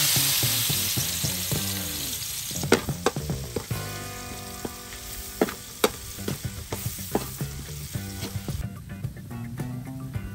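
Minced garlic and chili frying in hot oil in a metal wok: a loud sizzle that sets in at once and fades over the next few seconds. A metal spatula scrapes and clinks against the wok repeatedly as the mix is stirred.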